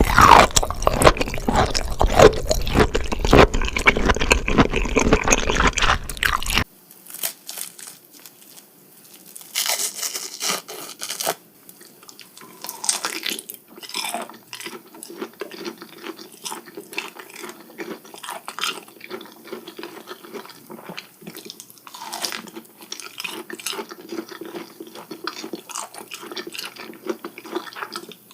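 Close-miked chewing and biting of raw scallop sashimi, wet mouth sounds right at the microphone. Loud and dense for the first six seconds or so, then it drops suddenly to quieter, scattered sticky clicks of chewing.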